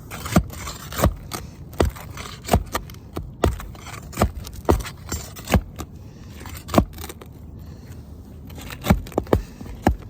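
Tool scraping and prying at brittle asphalt roof shingles, with about a dozen sharp, irregular knocks and cracks.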